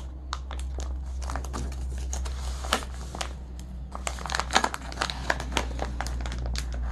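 A foil-lined plastic pouch crinkling and crackling as it is handled and pulled open at the top, with a run of irregular small crackles.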